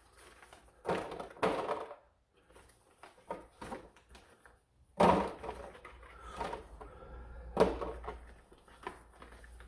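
Handling noise from a toy foam-dart blaster being unboxed: a few dull knocks and clunks with quieter rattling and rustling between them.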